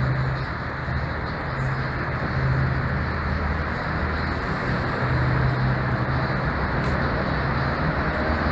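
Steady road-traffic noise inside a road tunnel, with a low engine hum that swells and fades as vehicles pass.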